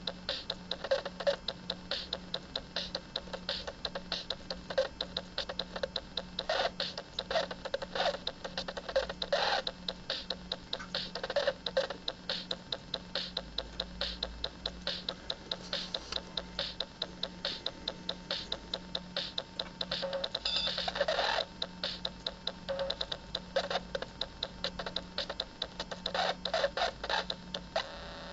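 Circuit-bent toy drum machine glitching: a fast, uneven stream of electronic clicks and ticks over a low pulsing buzz, with louder noisy bursts now and then, the longest about two-thirds of the way through.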